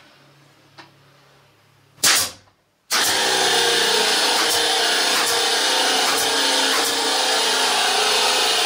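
A pneumatic brad nailer fires once with a sharp blast about two seconds in. About a second later a homemade 12 V battery-powered piston air pump starts and runs loudly and steadily, with faint repeated clicks from more brads being shot. The pump starting is its pressure switch restarting it as the line pressure drops.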